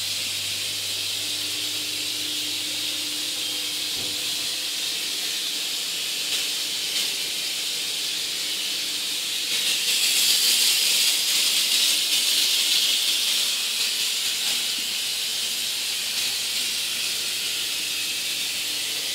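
Steady hiss of water flowing and trickling in an aquarium, growing louder for a few seconds around the middle, over a faint low hum.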